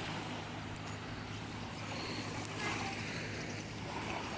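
Small waves lapping on a sandy shore, an even wash of surf noise with a steady low hum underneath.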